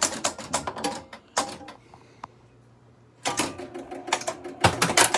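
Williams Liberty Bell pinball machine's relays and stepper units clattering in two rapid bursts of clicks, with a single click in the quiet gap between them. The machine is stepping on to the next ball, since it is set to 5-ball play.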